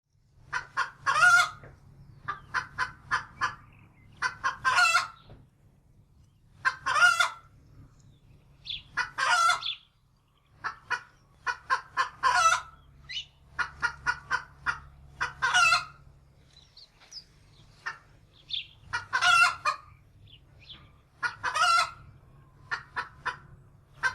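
Hen cackling: runs of quick clucks, each ending in a longer drawn-out squawk, repeating every two to three seconds.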